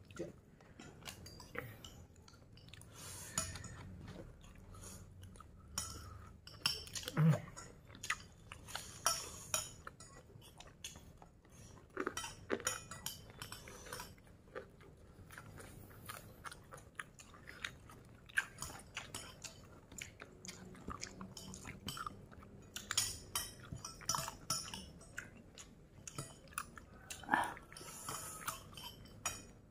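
A person chewing and crunching with the mouth close to the microphone, eating rice with fried tofu. Irregular short clicks and crackles run throughout.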